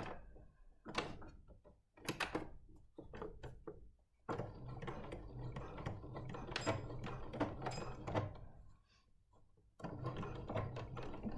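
Domestic electric sewing machine edge-stitching fabric in stop-start runs: a few short bursts, then a longer run of about four seconds, a brief pause, and it starts running again near the end.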